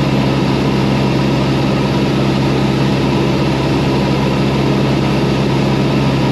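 Cessna 172's piston engine and propeller droning steadily in flight, heard through the pilot's headset intercom.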